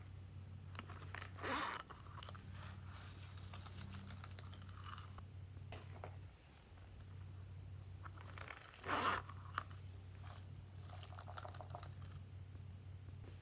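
Hands handling plastic slime containers and tipping glitter, sequins and small pieces onto slime: a few sharp crunches and crinkles, the loudest about nine seconds in, over a steady low hum.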